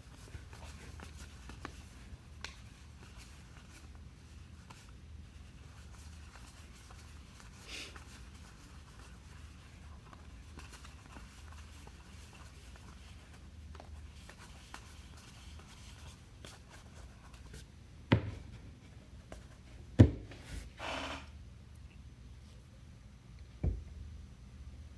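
Trading cards being handled during a pack break: faint sliding and rubbing of cards, with three soft knocks on the table in the last third, over a steady low hum.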